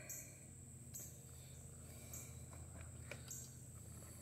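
Faint insect chirping, a high-pitched chirp about once a second over a steady high insect drone, with a low steady hum underneath and a few faint clicks.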